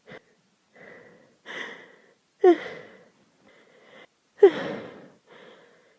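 A woman gasping and breathing hard between sneezes during an allergy attack, with two short, sharp voiced catches of breath about two seconds apart.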